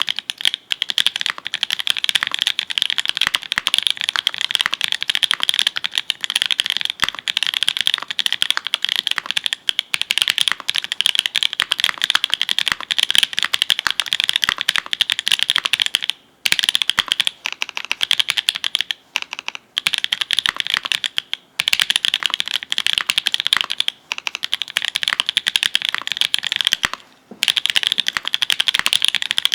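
Fast continuous typing on a GEONLAB F1-8K mechanical keyboard with an FR4 plate, GMK keycaps and linear switches built from Kailh Red stems in Everglide V2 nylon housings, the keys bottoming out in a dense stream of clacks. The typing breaks off briefly about halfway through and again near the end.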